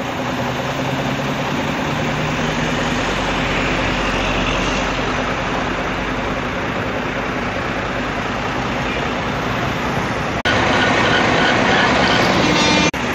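Vehicle engine running under a steady wash of road and wind noise, broken by two sudden short cut-outs near the end.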